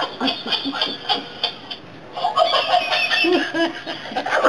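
Laughter in quick, rapid bursts that drop away briefly a little before the halfway point, then start up again.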